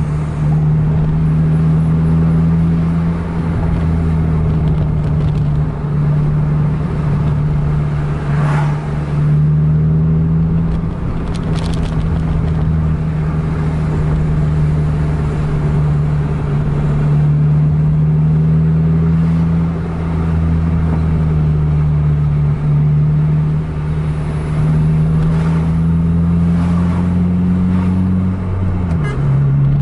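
A vehicle's engine running steadily under load at road speed, heard from inside the cab with road noise. Its pitch creeps up over the last few seconds, then drops sharply about a second before the end, as on a gear change.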